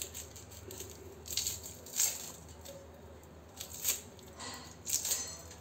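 Red onion being peeled with a small knife: the dry papery skin crackles and tears off in several short bursts.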